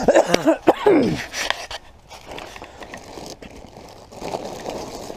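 A man's brief, wordless vocal sound, then rustling and handling noise with a few small clicks, as things are moved about by hand among dry leaves.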